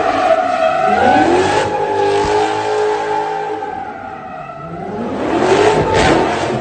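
Dodge Charger revving hard through a burnout, its rear tires spinning and squealing. The engine pitch climbs about a second in and holds high, eases off around four seconds, then rises again to its loudest as the car swings close by near the end.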